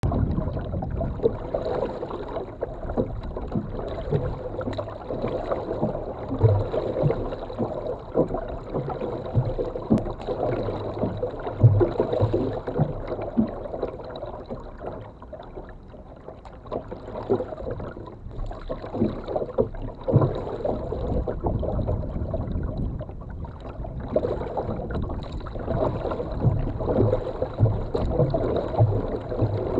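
Water lapping and gurgling against the hull of a kayak moving through calm shallow sea water, with irregular low knocks and thuds carried through the hull to the bow-mounted camera.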